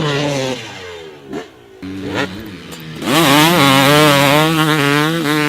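An engine revving: the pitch sweeps up about three seconds in and then holds high, wavering.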